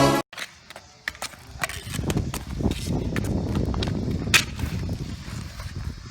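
Street hockey being played on pavement: scattered sharp clicks and taps of sticks and ball, with one loud crack about four seconds in, over a low rumble.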